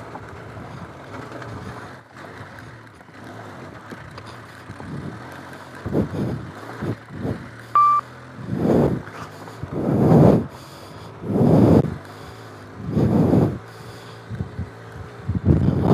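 Benelli TRK 502X's parallel-twin engine running at low speed on a rough gravel climb. From about six seconds in, loud bursts come roughly every second and a half, and there is one short beep about eight seconds in.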